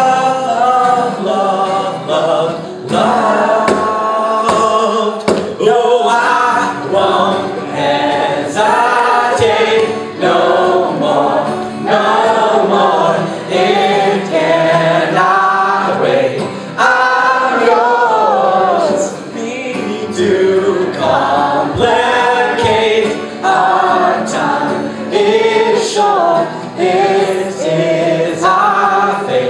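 Two male voices singing a song together, accompanied by an acoustic guitar.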